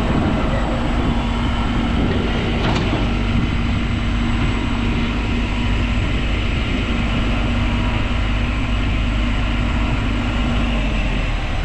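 A vehicle running steadily: a heavy, continuous low rumble with a steady hum that fades out near the end.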